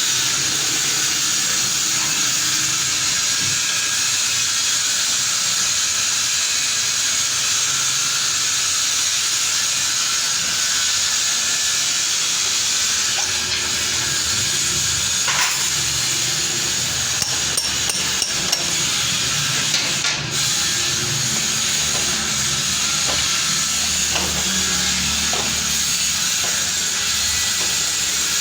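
Steady, loud hissing noise, with a few light clicks or taps past the middle.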